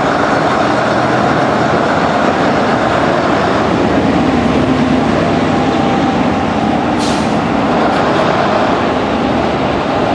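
Passenger train moving off slowly, heard from inside a coach: a steady rumble of wheels on the rails. There is a brief hiss about seven seconds in.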